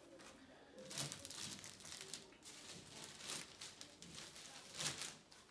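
Packaging crinkling and rustling in irregular bursts as gaming chair parts are handled and lifted out of their box.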